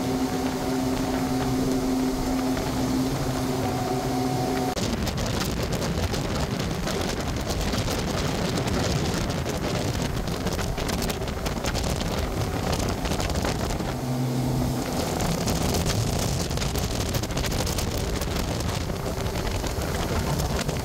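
Motorboat under way. At first its engine hums steadily; then, about five seconds in, a loud rush of wind and water takes over as the boat runs at speed, with wind buffeting the microphone. The engine hum briefly comes back through about fourteen seconds in.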